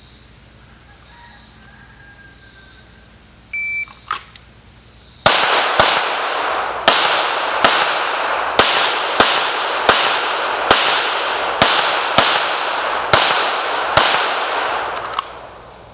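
A shot timer beeps once, and about a second and a half later a 9mm Sig Sauer P320 pistol fires about a dozen shots in quick pairs, roughly a pair a second, each shot ringing out with a trailing echo.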